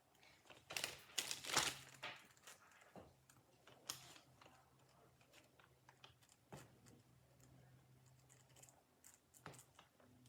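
Faint handling of a box and its packing paper: a brief burst of rustling about a second in, then scattered light clicks and taps.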